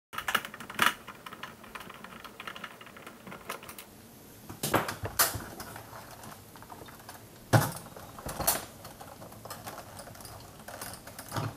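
Hard plastic clicks, taps and rattles as a Roborock robot vacuum's casing is handled and its top shell is pried off the chassis. About five sharp knocks stand out over a lighter clatter.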